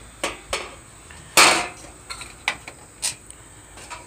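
A galvanized metal lantern being handled and its hinged top lid closed: about five sharp metal knocks and clanks, the loudest about a second and a half in.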